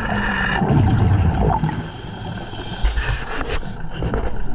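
Muffled underwater noise from a diver's camera at depth: a fluctuating low rumble, with a brief thin high whine at the start and again about three seconds in.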